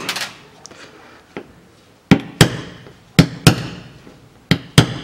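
Hammer striking a steel punch held against the fuel filler door's hinge rivets, knocking the rivets out. Six sharp metallic blows come in three quick pairs, starting about two seconds in.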